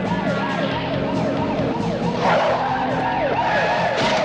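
Police car siren wailing in a fast yelp, rising and falling about three times a second, over engine noise. About two seconds in, a louder, rougher screech of tyres skidding breaks in as the cars pull up.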